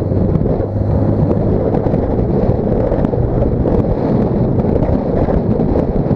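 Wind buffeting the microphone of a camera mounted outside on the rear decklid of a moving car, a loud, steady rushing with road and drivetrain noise underneath.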